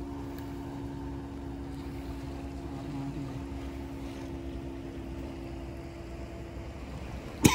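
A motor running steadily, with two held hum tones over a low rumble. A sharp click near the end.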